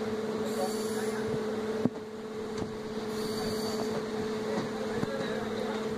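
Passenger train running, heard from aboard a moving coach: a steady rumble with a low, even hum, broken by scattered clicks and knocks from the running gear, the sharpest just under two seconds in.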